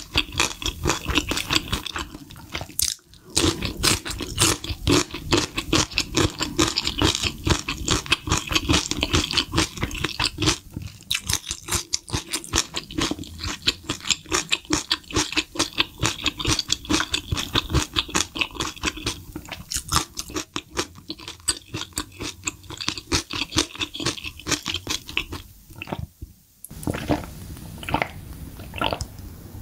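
Close-miked, crunchy chewing of fried food, a dense run of crackling bites and wet mouth sounds. Near the end it gives way to a few separate gulps of a drink.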